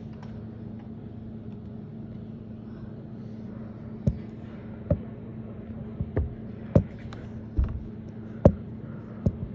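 A steady low hum runs throughout. From about four seconds in, a series of sharp knocks comes at irregular intervals of roughly a second.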